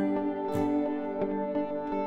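Calm instrumental background music: held tones with a few notes struck over them.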